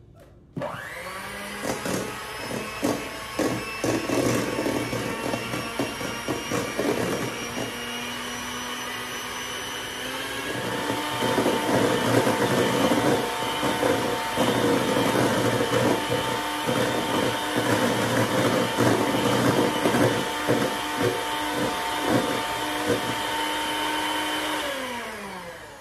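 Electric hand mixer creaming butter in a stainless steel bowl, its motor whining steadily with the beaters knocking against the bowl. It starts about half a second in, steps up to a higher, louder speed about ten seconds in, and winds down near the end.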